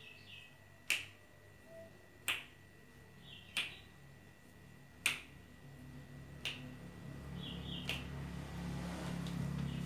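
A sharp snap repeated at a fairly even pace, about every second and a half, six times. A low rumble builds underneath from about halfway.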